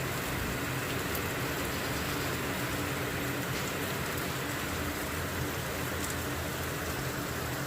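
Steady rain falling, an even hiss of drops on surfaces, with a faint low steady hum underneath.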